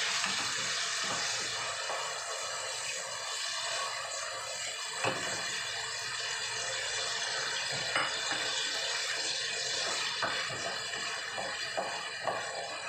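Pieces of pork sizzling in a frying pan, a steady hiss, with several sharp clicks of the spatula against the pan as they are stirred.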